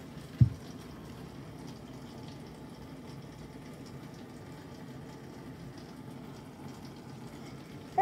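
Dishwasher running: a steady low hum with water swishing inside. One loud thump about half a second in, as a hand strikes the machine.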